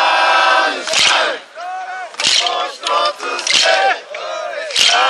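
Crowd chanting in unison with a sharp group hand clap about every second and a quarter, four claps in all: the festival's closing ceremonial hand-clap (uchiwakare).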